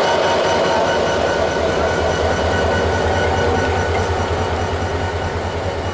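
Diesel locomotive engine running close by: a low pulsing hum with steady whining tones above it, easing off slightly toward the end.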